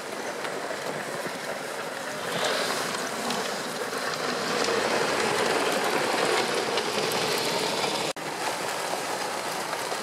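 MTT-136 tracked carrier driving over packed snow: a steady clattering rattle of the tracks and running gear, with crunching snow, that grows louder about two seconds in. It cuts out for an instant near the end.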